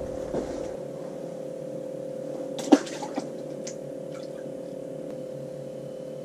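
A steady hum, with a sharp knock a little before the middle and a lighter one just after it.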